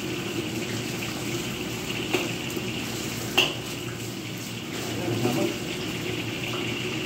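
Kitchen background: a steady hiss with a few clinks of utensils against dishes or cookware, the sharpest one about three and a half seconds in.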